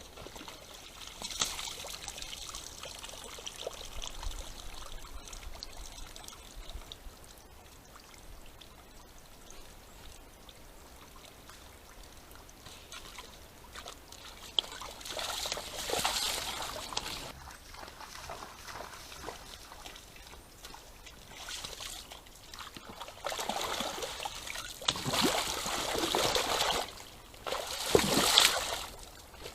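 A red deer stag splashing and sloshing in a muddy wallow, in irregular bursts, loudest in the last few seconds.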